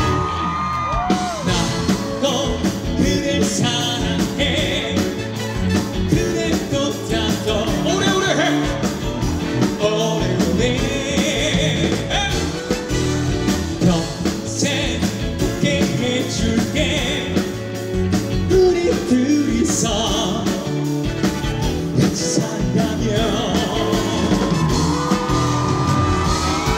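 Live rock band playing loudly with singing over drums and guitar.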